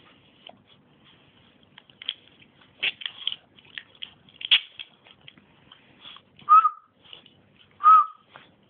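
Boston terrier puppies playing: a run of short scuffles and clicks, with two short high squeaks about a second and a half apart in the second half, the loudest sounds.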